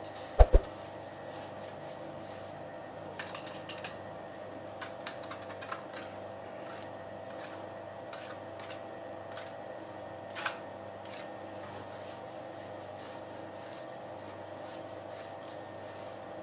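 Bakery work sounds: two dull thumps about half a second in, then scattered light clicks, taps and scrapes over a steady machine hum.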